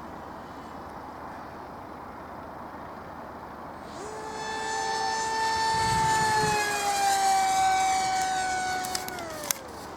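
Electric HobbyKing Skyfun RC jet making a fast pass: its motor whine comes in about four seconds in, grows louder while sliding slowly down in pitch, then drops steeply in pitch near the end as the plane flies past. Before it arrives there is only a faint steady hiss.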